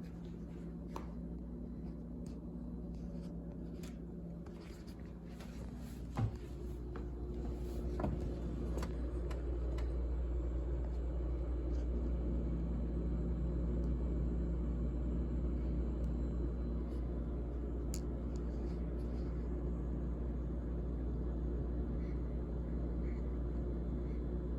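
GE GTH18XCTZRBB top-freezer refrigerator running with a steady low hum. A sharp click comes about six seconds in, and over the next few seconds the hum grows louder and stays there.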